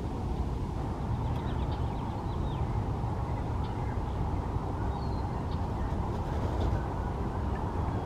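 Steady low outdoor background rumble, with a few faint, short high bird chirps scattered through it.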